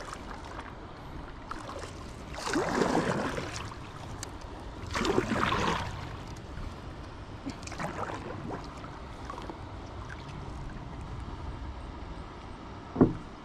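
Paddle strokes swishing through river water from a paddleboard, one every two to three seconds over a low water wash, with one sharp knock near the end.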